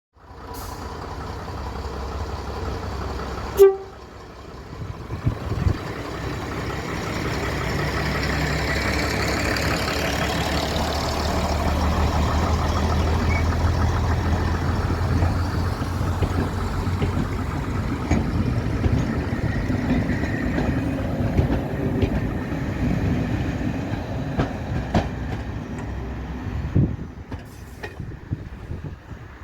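A heritage train running on the line: a steady low rumble with rail noise, loudest in the middle and easing off near the end. A short loud toot sounds about three and a half seconds in.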